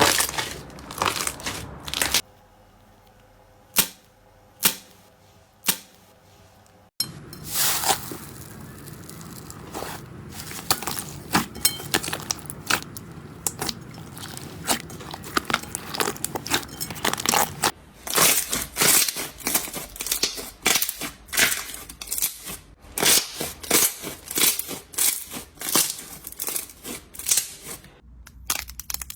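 Slime being squeezed and stretched by hand, crackling, snapping and popping. A quieter stretch with a few separate snaps comes early on, and the popping grows rapid and dense over the last third.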